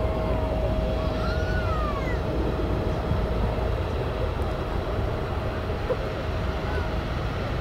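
Jet airliner engines running at a distance: a steady low rumble with one steady whine held throughout. A few short chirps rise and fall between about one and two and a half seconds in.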